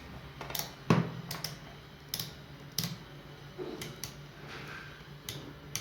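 Irregular sharp clicks and light knocks, about ten of them, from the hard plastic parts of a hair dryer's switch assembly being handled, over a faint steady hum.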